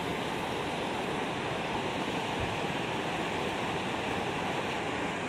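Steady rush of floodwater running over a submerged causeway and pouring off its edge in a fast, muddy river in spate.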